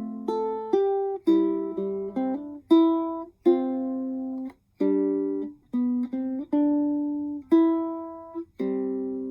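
PCH ukulele played fingerstyle: single plucked notes and chords, each ringing and decaying, with a final chord about two-thirds of the way through left to ring out.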